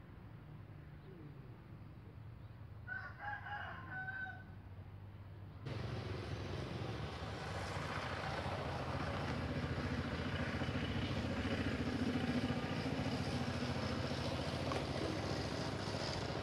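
A rooster crows once, about three seconds in. From about six seconds a louder, steady rushing noise starts suddenly and continues.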